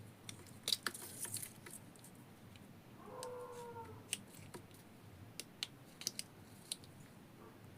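Faint, scattered small clicks and taps of a Bluetooth neckband earpiece's plastic housing being handled and prised open. A brief faint wavering call is heard about three seconds in.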